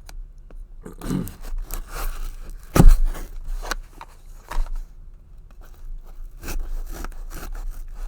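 Cardboard package being cut open: irregular scraping, crackling and clicking as a blade works through the tape and box. A single sharp knock comes about three seconds in.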